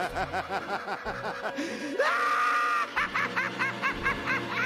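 A cartoon Joker's maniacal cackle: rapid, rhythmic 'ha-ha-ha' laughter, broken about two seconds in by a long, high-pitched shriek of laughter, then cackling again.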